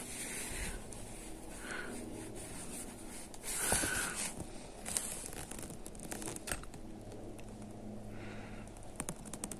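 Faint handling noise: soft rustling and small clicks, most prominent briefly in the middle, with a quick run of clicks near the end, over a low steady hum.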